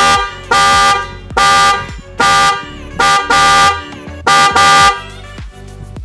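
Electric snail-type car horns being test-sounded, about eight short honks over five seconds, the later ones in quick pairs.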